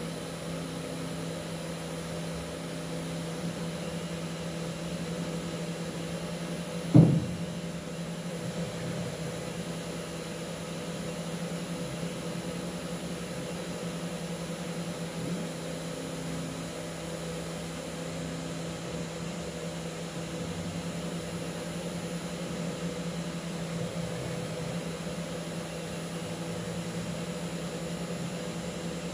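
Mini five-axis CNC machine's spindle motor running steadily as it carves a wooden test block, a constant hum. A single sharp knock about seven seconds in.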